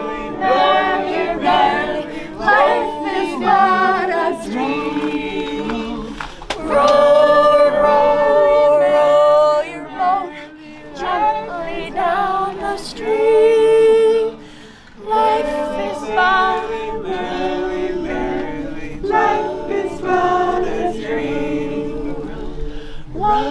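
A group of voices singing a cappella in phrases of held notes, with a short break about ten seconds in and another near fifteen seconds.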